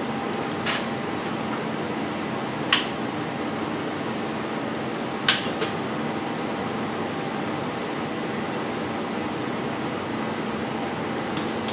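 Steady fan-like whirring hum, with a few sharp clicks, the loudest about 2.7 and 5.3 seconds in, from a motorcycle's handlebar turn-signal switch being worked.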